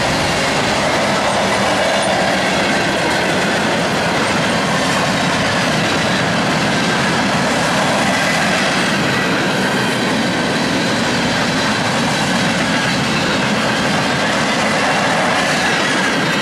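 Freight cars (tank cars, then flatcars) of a mixed freight train rolling past: a steady, loud rumble and rush of steel wheels on the rails.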